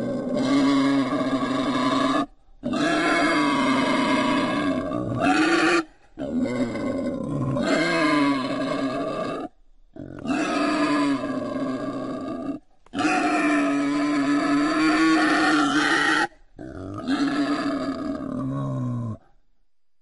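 Wild boar calling: six long calls at a steady pitch, each two to three seconds, with short breaks between them.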